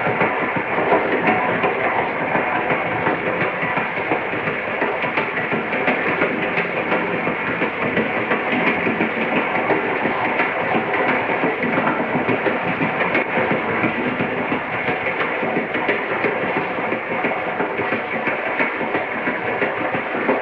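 A moving train running steadily: a continuous rumble with dense rattling of the cars over the track, unchanging in level.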